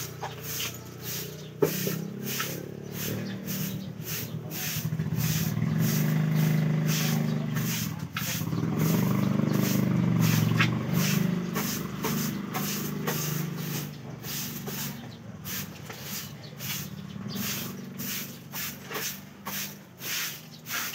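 A motor vehicle's engine humming nearby, swelling loudest twice in the middle, over a steady run of short scratching strokes about three a second.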